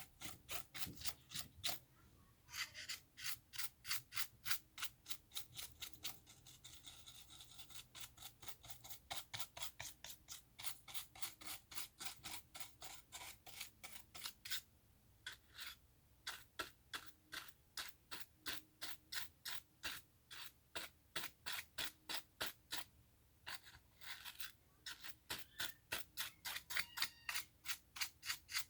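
A small brush scrubbing dust off a laptop's internal parts: quick back-and-forth strokes, about three or four a second, with a few short pauses.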